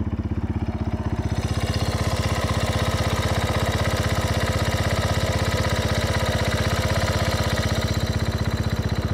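Yamaha Warrior 350 ATV's single-cylinder four-stroke engine idling hot with a steady, even putter, while its idle speed is being turned down.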